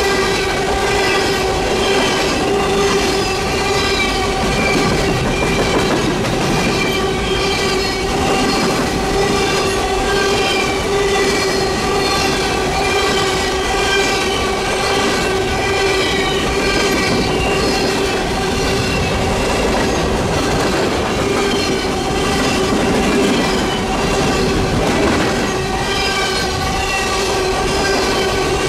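Empty coal hopper cars rolling past at trackside: a steady rumble of steel wheels on rail with a rhythmic clickety-clack and a steady whine.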